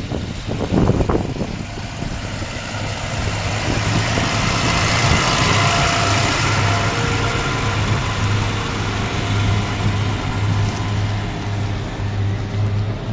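New Holland T7.245's 6.7-litre six-cylinder diesel running under load while pulling a large square baler. The mix of engine and machinery noise grows louder towards the middle, then eases off.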